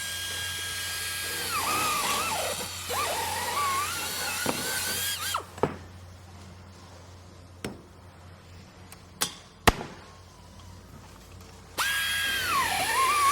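Electric drill running with a high motor whine that drops and wavers in pitch as the bit bites into the material, then stops about five seconds in. A few sharp knocks sound in the pause, and the drill starts up again near the end, its pitch dipping as it loads.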